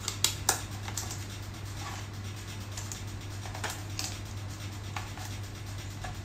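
Hard plastic parts of a food processor's black cover being handled: two sharp clicks in the first half second, then scattered light taps and rattles, over a steady low hum.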